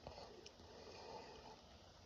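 Near silence: faint breathing through the nose, with a soft click near the start and another about half a second in.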